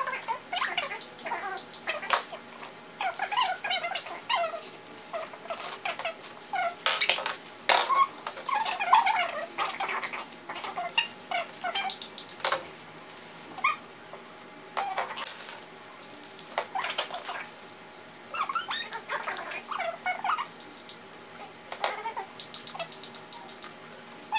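Crinkling and rustling of plastic wrap and packaging as ornaments are handled and unwrapped, a string of irregular crackles with small squeaks.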